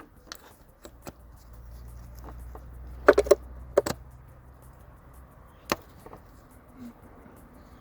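Sharp clicks and knocks of tools and parts being handled on the engine: a quick run of three about three seconds in, two more just after, and a single one near six seconds.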